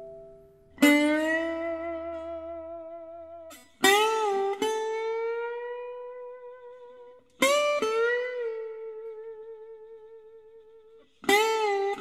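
Slow background music on guitar: a plucked chord about every three and a half seconds, each left to ring and fade, with a wavering vibrato and some notes bending in pitch.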